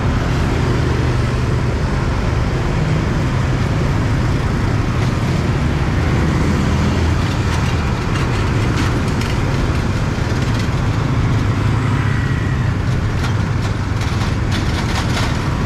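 Steady road traffic noise of a busy city street, with a continuous low engine hum and a scatter of faint clicks in the second half.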